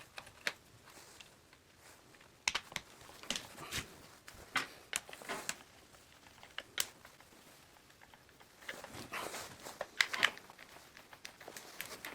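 Irregular small clicks, light knocks and scrapes of plastic router housing parts being handled and fitted back together by hand.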